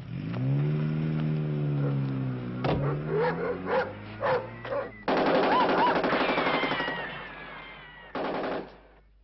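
A car engine revving up as the car pulls away, then automatic gunfire: a long burst about five seconds in and a short burst near the end.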